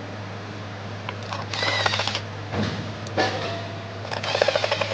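Ratchet wrench turning in oil pan bolts, in three short bursts of rapid clicking.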